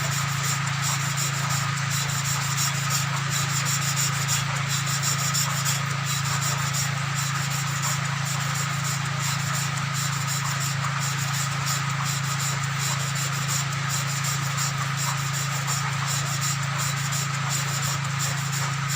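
An engine valve being lapped into its seat in the cylinder head of a 13 hp GX390-type petrol engine: the valve face rubs back and forth on the seat through emery lapping compound. The rubbing is steady, over a constant low hum.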